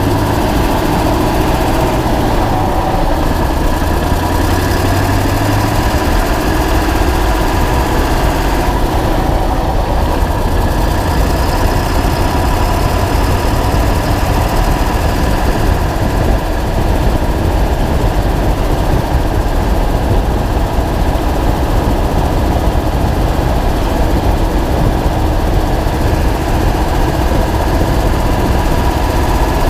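Ford 7.3 L Power Stroke V8 turbodiesel running steadily, heard from a camera mounted on the truck's suspension spring, with the tick of an exhaust leak.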